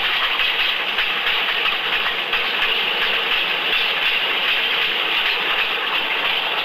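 Steam train running: a steady rushing noise.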